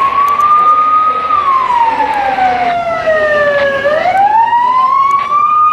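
Emergency vehicle siren in a slow wail: the pitch climbs, holds, slides down over a couple of seconds and climbs again about four seconds in.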